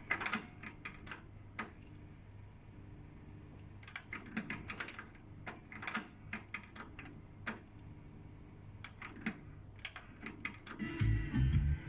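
Irregular clusters of sharp clicks and clunks from a Sony HCD-H881 music centre's buttons and cassette deck mechanism being operated, with the music stopped. A faint low hum runs underneath.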